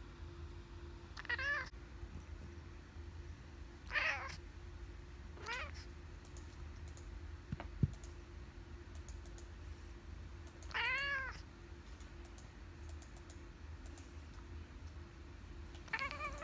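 Long-haired grey-and-white house cat giving five short meows, each rising and falling in pitch, a few seconds apart: the grumbling of a sleepy cat that wants to be left alone while it is petted. One sharp click a little past the middle.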